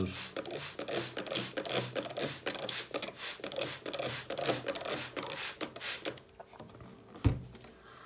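Trigger spray bottle squirting water in many quick strokes, each a short spray with a click of the trigger, for about six seconds. It then stops, and a single thump follows about seven seconds in.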